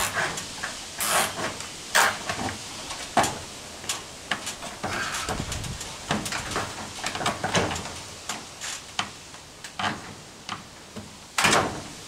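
Hand work fastening a speaker with plastic cable ties: irregular scrapes, rustles and clicks, with a few louder rasping strokes, the loudest near the end.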